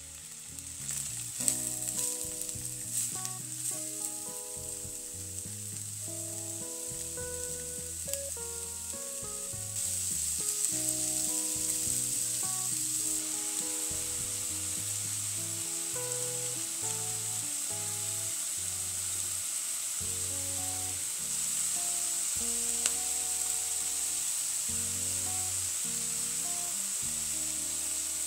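Diced onions sizzling in oil in a pot: a steady frying hiss that gets louder about ten seconds in, with a few clicks and knocks in the first seconds. A soft melody of held notes plays underneath.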